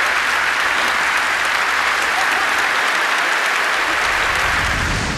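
A large crowd applauding, steady and loud, fading out near the end.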